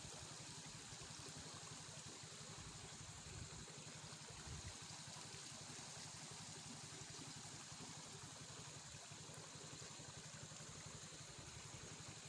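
Faint, steady trickle of a shallow stream running over rocks.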